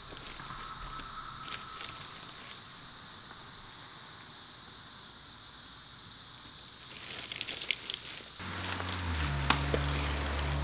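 Plastic grocery bags and cases of bottled water being handled on a driveway: faint rustles and clicks over a steady high hiss. About eight seconds in, a louder low droning hum comes in and shifts in pitch a few times.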